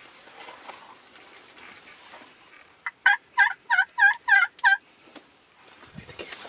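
Turkey yelping: a run of about seven loud, evenly spaced call notes lasting roughly two seconds, midway through, over a quiet field background.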